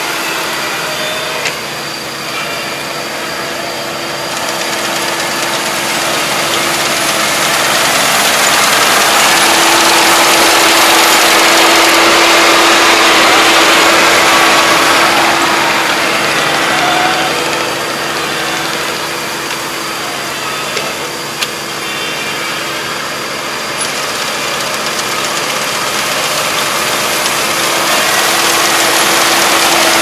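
Iseki rice combine harvester running under load as it cuts standing rice: a steady engine and machinery drone with a constant hum. It grows louder about a third of the way in, eases off, then swells again toward the end as the machine comes closer.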